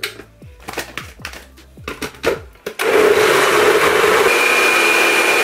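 Personal cup blender working a load of frozen spinach and fruit. For its first few seconds it gives irregular knocks and rattles. From about three seconds in, the motor runs up to a loud, steady whir as the mix blends through.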